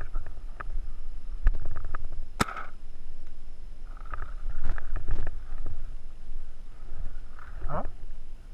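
Paintball markers firing: scattered sharp pops, the loudest about two and a half seconds in and a quick cluster around five seconds, over wind rumble on the microphone.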